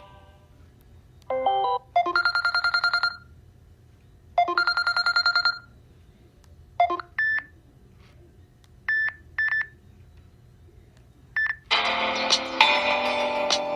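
Samsung Galaxy S9 ringtones playing: a short blip, then two separate bursts of rapidly trilling electronic ringing about a second long each, several short beeps, and near the end a fuller ringtone melody begins.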